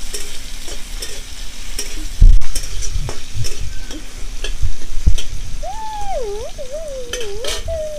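Chopped tomato sizzling in hot oil with whole spices in a karai, stirred with a metal spatula that scrapes and knocks against the pan. There is a heavy low thump a little over two seconds in. In the last couple of seconds a wavering tone rises and falls, like someone humming.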